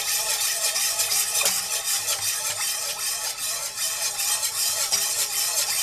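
Wire whisk beating white sauce (béchamel) in a pot: fast, rhythmic scraping and clinking of the wires against the pot as milk is worked into the butter-and-flour roux.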